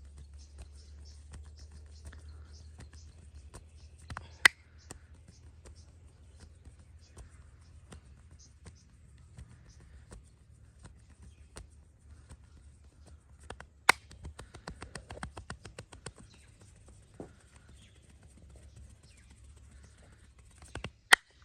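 Massage by hand: light pats, rubs and taps on the body, with a quick run of rapid taps a little past the middle. Three sharp, loud cracks stand out, one in the first quarter, one in the middle and one near the end.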